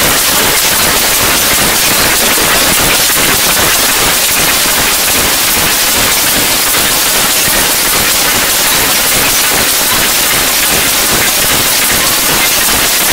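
Loud, steady hiss of white-noise static, even in level throughout, with no music or beat in it.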